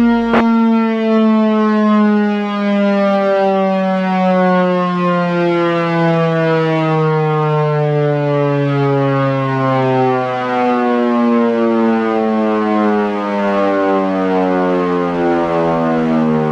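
Federal Signal Thunderbolt outdoor warning siren winding down, its tone falling slowly and steadily in pitch. A short click comes about half a second in.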